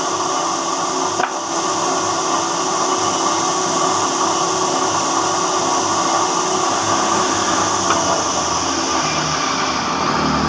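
Woodworking router machine running steadily, cutting grooves into a wooden door, with a constant high whine over the cutting noise. A lower hum joins in near the end.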